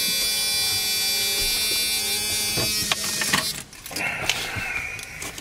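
Car's ignition-key warning buzzer sounding steadily, cutting off about three seconds in as the keys are pulled from the ignition with a few jingling clicks. A softer hiss follows near the end.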